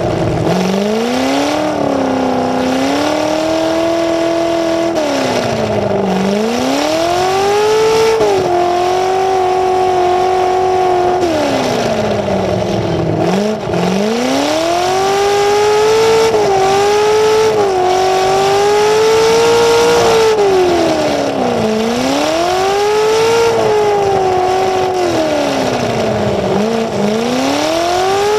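A demolition derby car's engine, blaring through open exhaust pipes that stand straight up through the hood, is revved up and let fall back again and again, six or seven swells in all, as the car is driven in short bursts.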